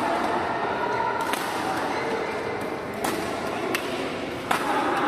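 Badminton rally: four sharp racket hits on the shuttlecock, unevenly spaced, ringing in a large sports hall over a murmur of voices.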